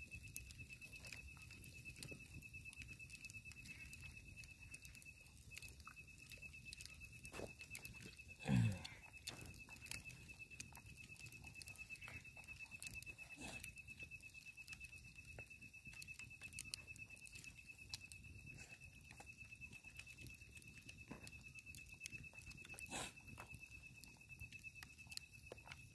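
A thin, high insect trill holds steadily, with faint clicks and rustles of hands working cooked rice on banana leaves. About eight and a half seconds in comes one short, louder low sound that falls in pitch.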